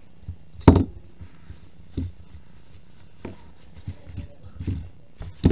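A handful of short, scattered knocks and thuds, like objects being set down or bumped, the loudest less than a second in.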